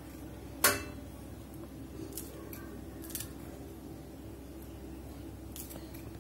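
Green chillies being cut into small pieces on a wooden chopping board: one sharp click under a second in, then a few faint taps and clicks, over a low steady hum.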